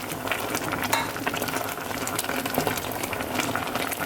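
Pan of curry sauce boiling hard, a steady bubbling with many small pops, as it is stirred around.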